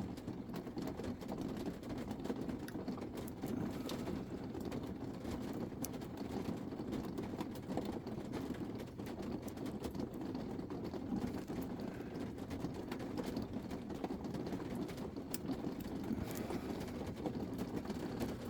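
A steady low rumble with a few faint, scattered clicks of a lock pick working inside a lock.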